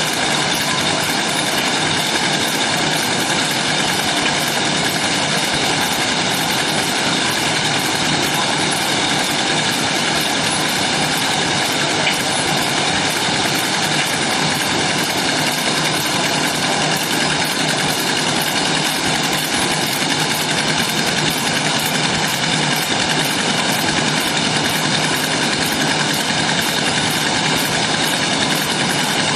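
Chewing gum packaging machine running: a steady, continuous mechanical noise with a constant high hum, even in level throughout.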